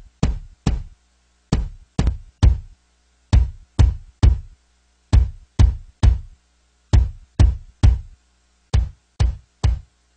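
Soloed kick drum in a mix, layered with an added sample, playing a syncopated pattern of hits, about two to three a second in uneven groups. Each hit has a sharp click and a deep low end that dies away quickly.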